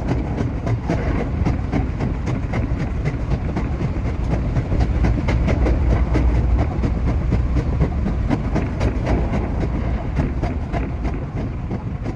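Running noise of a JR West 227 series electric train heard from the cab: a steady low rumble with many quick clicks from the wheels over the track.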